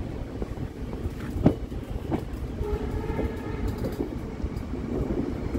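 Train running at speed, heard from inside a coach: a steady rumble with a sharp knock of the wheels about one and a half seconds in. A locomotive horn sounds faintly for about a second and a half near the middle.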